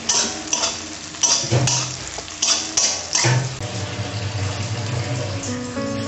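A steel spatula scraping and stirring frying onions in an aluminium kadai, about seven sharp strokes in the first three seconds. Background music comes in a little after halfway.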